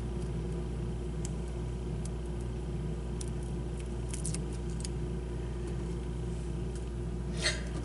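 Steady low hum with a few faint clicks and ticks from fingers peeling the backing off a strip of double-sided foam tape and handling small screws.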